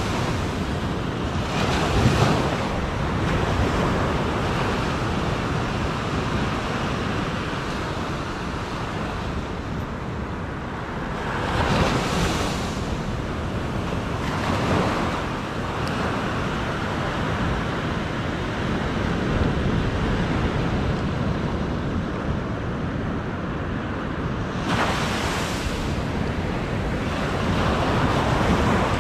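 Surf washing onto a sandy beach: a steady rush of water with a few louder swells. Wind is buffeting the microphone.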